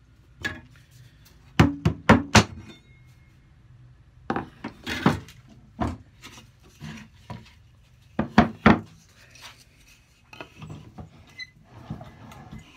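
Pieces of timber being handled and set down on a wooden workbench: a series of sharp wooden knocks, with a quick cluster of four about two seconds in and a pair about eight and a half seconds in, and lighter rubbing and clunks between.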